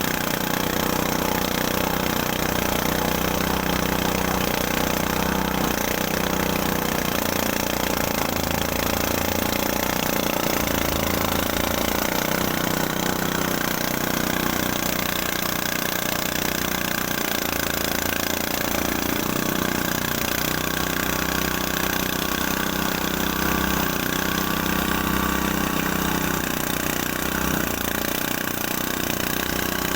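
Engine-driven rice threshing machine running steadily.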